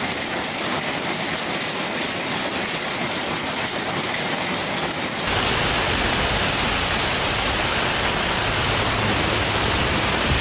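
Heavy rain pouring down steadily. About five seconds in the sound cuts abruptly to a louder, fuller downpour with more low rumble.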